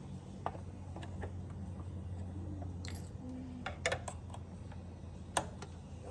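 Scattered light clicks and clinks of small sewing-machine parts being handled and fitted, a few of them sharper, over a steady low hum.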